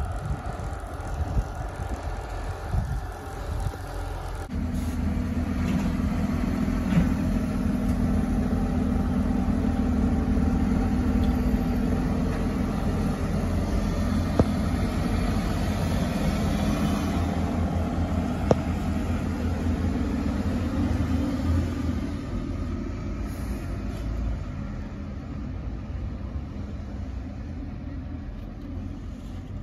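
Refrigerated delivery lorry's engine running steadily close by, growing louder about four seconds in and fading over the last several seconds as the lorry moves off.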